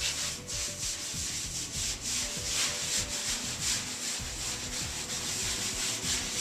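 A wet sponge scrubbing across a fresh clay plaster wall in repeated strokes. The sponge has not been wrung out and is heavy with water, which is improper sponge compression that leaves streaks and loose sand.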